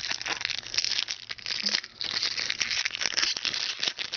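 Foil trading-card pack wrappers crinkling and crackling as they are handled, with a brief pause about halfway through.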